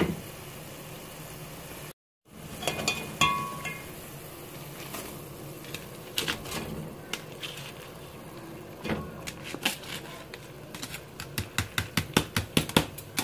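Jaggery syrup boiling steadily in a metal cooking pot while dry rice is tipped in, with a clatter of the container against the pot a few seconds in. Near the end a metal spoon strikes the pot in quick regular clicks as the rice is stirred.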